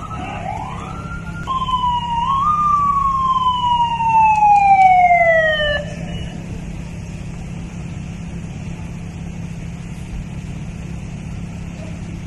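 Police vehicle siren: two quick rising sweeps, then one long wail that falls slowly in pitch and cuts off abruptly about six seconds in. A steady low hum continues underneath.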